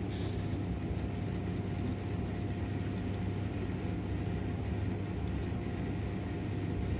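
A steady low background hum with a faint steady tone above it, and a few faint clicks about three and five seconds in.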